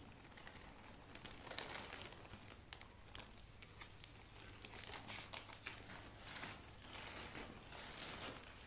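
Crinkling and rustling of a bag of dry tile mortar as it is shaken and tipped over a bucket, with scattered sharp crackles of the bag, the sharpest about one and a half and nearly three seconds in.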